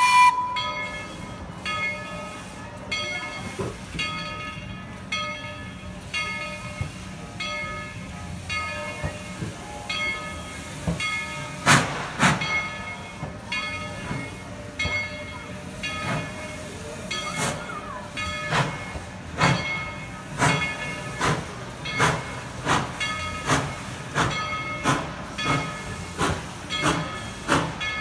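Narrow-gauge steam locomotive starting off: its bell rings steadily, about one stroke a second. About halfway through, exhaust chuffs and hissing steam join in, coming regularly as the train gets moving.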